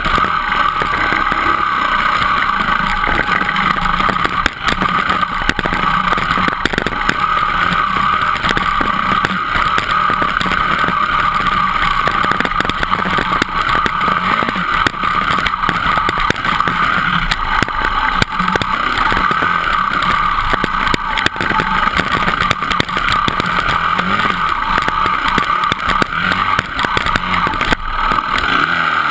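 Dirt bike engine running steadily under load over a rocky trail, heard up close on the bike, with frequent knocks and rattles from the rough ground.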